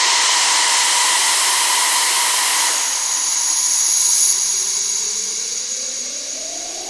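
Synthesized noise-sweep and riser sound effects: a wash of hissing white noise with faint steady tones, changing about 3 s in to a new noise sweep carrying a high steady whistle-like tone. From about 4.5 s a synth riser begins, several pitched tones gliding upward and climbing faster toward the end, while the level slowly drops.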